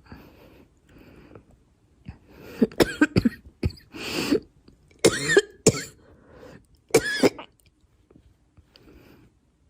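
A girl coughing in bouts: a quick run of coughs about two and a half seconds in, then separate harder coughs a little after five seconds and again around seven seconds, the later ones with some voice in them.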